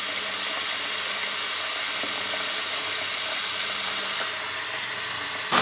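Tap water running in a steady stream from a kitchen faucet into a stainless steel pot with a perforated insert, splashing on the water already in it.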